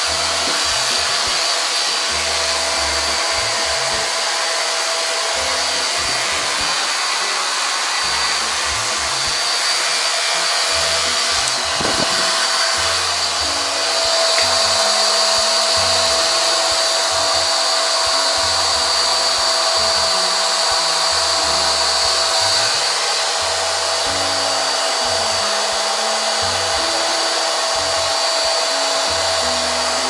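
Handheld hair dryer running steadily, blowing air with a steady motor whine, getting a little louder about halfway through as it is aimed closer.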